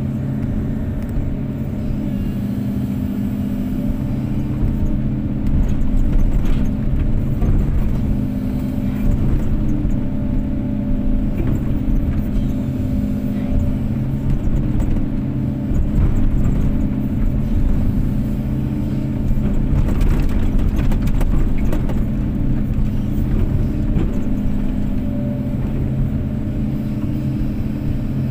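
Kobelco SK250-8 excavator's diesel engine running steadily, its note swelling several times as the hydraulics take load. A few brief knocks come about two-thirds of the way through.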